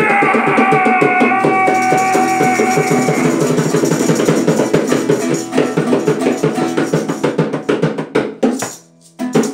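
Nylon-string acoustic guitar strummed fast and hard while a man holds one long shouted note over it for about three seconds. The strumming runs on after the note ends, stops suddenly near the end, and one more strum follows.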